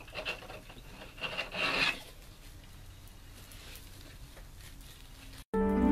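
Sheer purple ribbon rustling and rubbing against itself and the hands as it is wrapped around a bouquet handle, in several scrapes over the first two seconds, the loudest near the end of them. After a brief cut, background music starts near the end.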